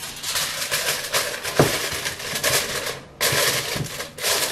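Aluminium foil crinkling and crackling as it is pulled over and crimped around the rim of a metal mixing bowl, with a short pause about three seconds in.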